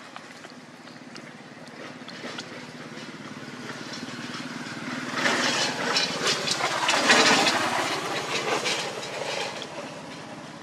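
A vehicle passing by: its noise builds over several seconds, is loudest about seven seconds in, then fades away.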